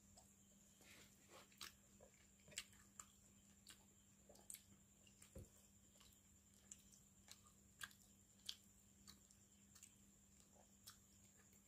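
Faint, scattered wet clicks and smacks of eating by hand: fingers mashing rice into fish curry and a mouth chewing. Underneath is a steady faint low hum with a high whine.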